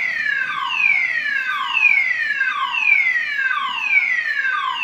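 Building fire alarm sounding in an underground car park: an electronic tone sweeping downward, repeating rapidly without pause. It keeps going off, which the owner puts down to a fault in the garage alarm or to someone pressing a manual fire alarm button in a neighbour's stairwell.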